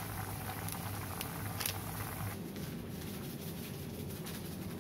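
Chicken broth simmering and bubbling in a frying pan over a steady low hum, with a few light ticks in the first two seconds. About two seconds in, the bubbling gives way to a quieter room hum.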